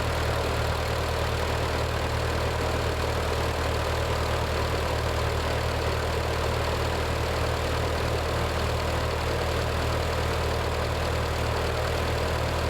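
Ford 8N tractor's four-cylinder flathead engine idling steadily.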